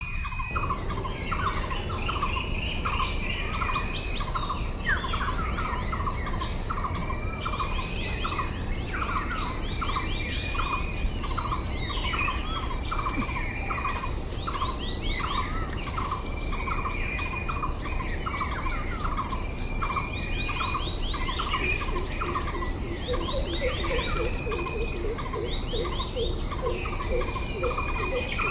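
Outdoor chorus of birds chirping and calling over a continuous high insect drone. Short chirps repeat about two or three times a second with higher whistled notes between them, and in the last five seconds a lower, rapidly repeated call joins in.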